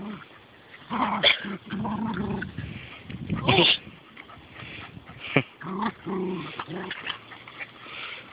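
A dog vocalising in a series of short calls at play, the loudest and highest about three and a half seconds in.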